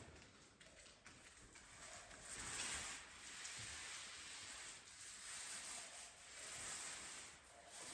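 Paint roller being worked over a ceiling, making faint, sticky swishing strokes. There are three or four strokes, each lasting one to two seconds.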